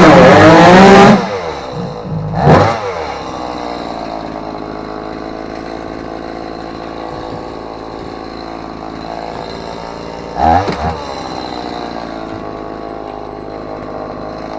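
Chainsaw engine revved high for about a second, its pitch rising and falling, then dropping to a steady idle. The throttle is blipped briefly twice, about two seconds in and again near the end.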